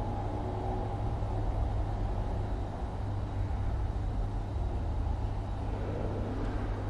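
Steady low rumble and hum of office background ambience, with no distinct events. A swell of noise begins building near the end.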